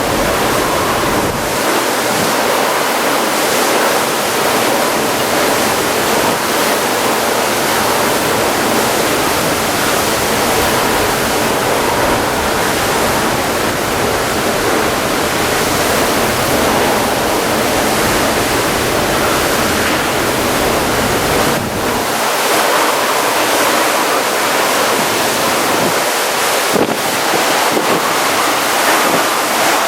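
Typhoon rainstorm: torrential rain pouring and strong wind blowing, a loud, steady rushing noise with a few short knocks in the second half.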